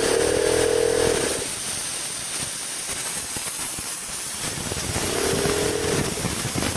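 Steady, loud hiss of air from the compressor, with a short humming tone at the start and again about five seconds in, each lasting about a second and a half.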